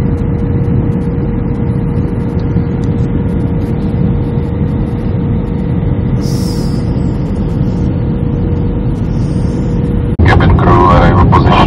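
Jet airliner cabin noise at a window seat over the wing during the descent: a steady engine and airflow drone with a thin steady hum above it. About ten seconds in, the sound cuts to a louder passage that sounds like a voice.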